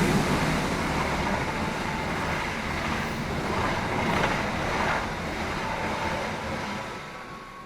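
Commuter train passing close by just after sounding its horn: a steady rushing noise of the moving train that fades away near the end.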